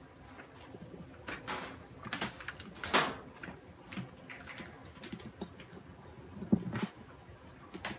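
Handling noises close to the microphone: irregular knocks, clicks and rustles, with a sharp knock about three seconds in and a heavier thud about six and a half seconds in.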